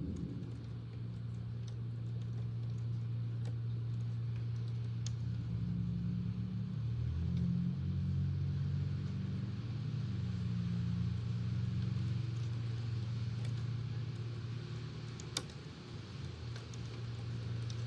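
Steady low hum of a fan, with rain ticking in the background: scattered light taps and one sharper click about fifteen seconds in.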